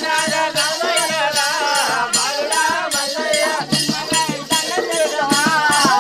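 Indian folk devotional music: a voice singing a wavering melody over a steady beat of rattles and percussion.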